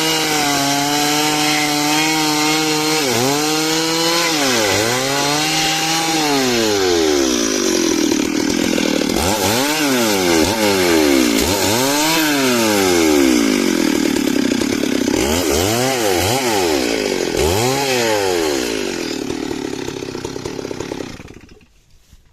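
Two-stroke chainsaw cutting dry wood. The engine pitch sags and climbs back again and again as the chain bites into the wood and frees up. It stops abruptly shortly before the end.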